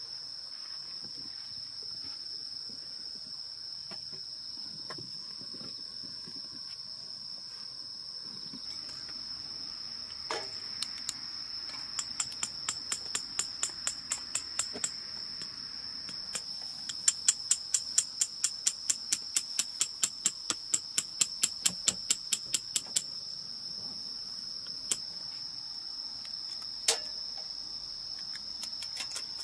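Crickets trilling steadily in one high, unbroken note. Partway through, a long run of sharp, evenly spaced knocks or taps, about three a second and loudest in the middle, then a couple of single knocks near the end.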